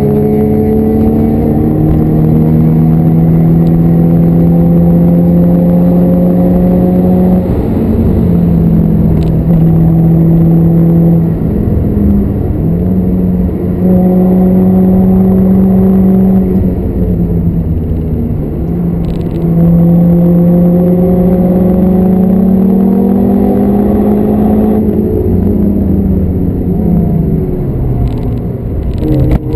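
VW Lupo's engine running hard at high revs on a race track, its pitch holding or slowly climbing for several seconds at a time and dropping back briefly several times as the driver lifts or changes gear, over steady wind and road noise.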